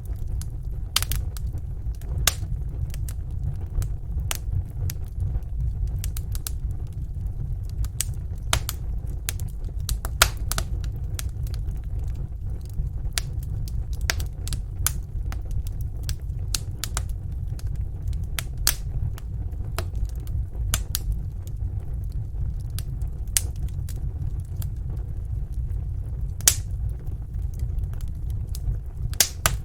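Fire crackling in a fireplace: irregular sharp pops and snaps every second or two over a steady low rumble of the flames.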